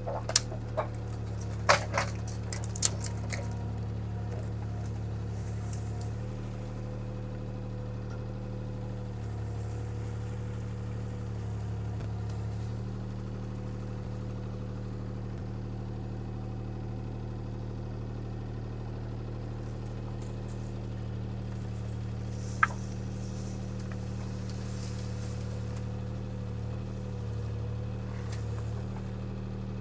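Bobcat T300 skid steer's diesel engine running at a steady drone. A few sharp clicks and knocks come in the first three seconds, and one more about two-thirds of the way through.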